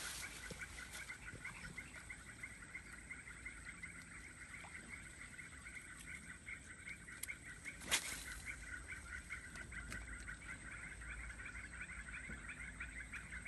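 Dense, steady chorus of rapidly pulsing frog calls in two high bands from the swamp. A single sharp click stands out about eight seconds in.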